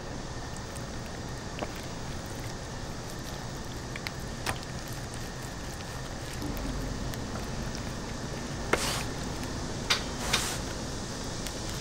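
Gloved hands rubbing mustard over raw whole chickens: soft wet squishing with a few sharper wet smacks toward the end, over a steady background hiss.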